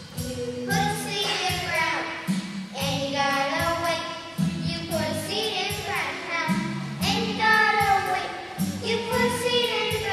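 A group of young children singing a song together, with an instrumental accompaniment keeping a steady beat.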